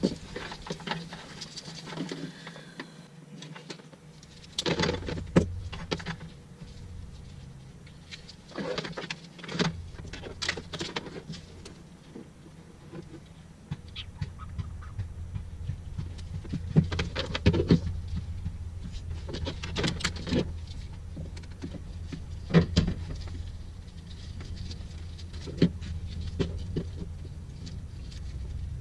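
Scattered clicks, knocks and rustles of hands working with wire, parts and tools on car wiring, at an uneven pace, over a low steady hum that comes in about four seconds in and grows stronger about ten seconds in.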